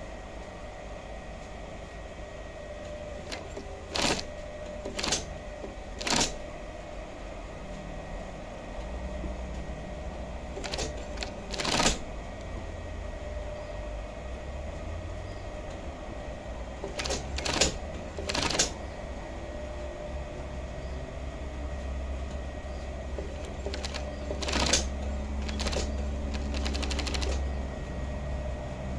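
Union Special 35800 feed-off-the-arm industrial sewing machine running, sewing a double seam through denim: a steady motor hum with a low rumble that gets stronger in spells from about eight seconds in. Sharp clicks come in small clusters several times.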